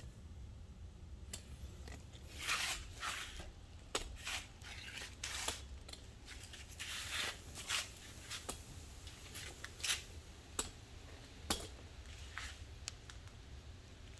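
Hand tools loosening and backing out the rear brake caliper bolts on a BMW E46 M3: irregular clicks and short scraping rasps, several seconds apart, over a low steady hum.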